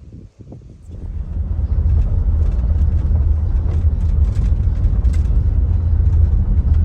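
Wind buffeting the camera microphone: a loud low rumble that builds about a second in and stays steady.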